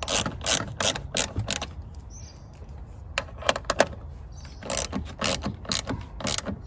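A hand ratchet clicking in three short runs, with brief pauses between, as a nut is tightened onto a car battery's negative terminal post.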